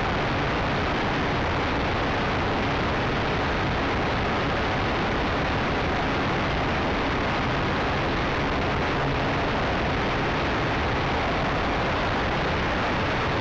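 Steady rushing noise picked up by a camera mounted on the rudder of a gasoline-powered RC Yak 54 in flight: wind over the airframe mixed with engine and propeller noise, with no distinct engine tone.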